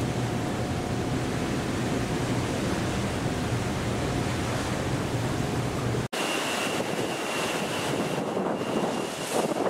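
Wind buffeting the microphone over the wash of the sea, a steady rushing noise with a low steady hum beneath it. About six seconds in the sound cuts abruptly; the low hum is gone and a faint high steady whine sits under the wind and sea.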